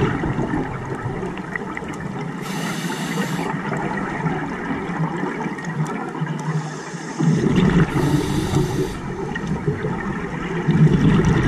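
Scuba diver breathing through a regulator underwater: short hissing inhales alternating with gurgling rushes of exhaled bubbles, in a slow repeating cycle.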